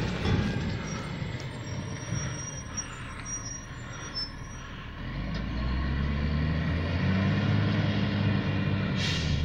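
Recycling truck engine running at a distance, growing louder and steadier about halfway through as it works along the street, with a short hiss near the end.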